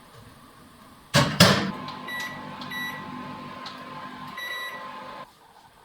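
Microwave oven: two clunks as the door shuts, then the oven runs with a steady hum while three short beeps sound. The hum cuts off about five seconds in.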